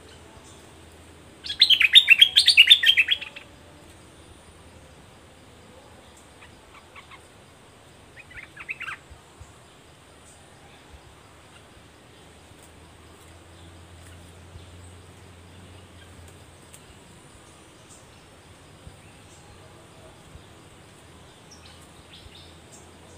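A bulbul sings a loud burst of fast, short chattering notes lasting about two seconds, beginning about a second and a half in. A shorter, quieter phrase follows around eight to nine seconds in, and faint scattered notes come over a low steady background.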